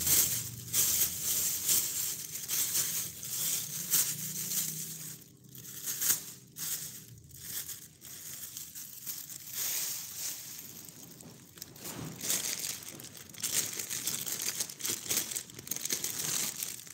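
A thin plastic bag crinkling and rustling as it is handled and folded, in uneven spells with short pauses.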